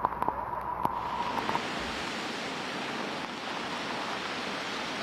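Steady rush of floodwater, an even hiss of water noise. For about the first second and a half a steady high tone and a few sharp clicks sound over it.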